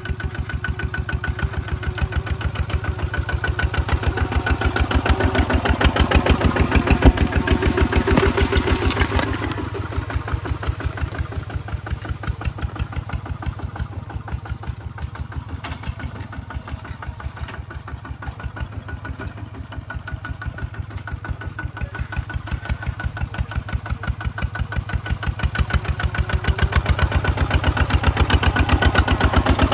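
Kubota walk-behind tractor's single-cylinder diesel engine running under load while plowing, with a steady, rapid beat of firing pulses. It grows louder around four to nine seconds in and again near the end.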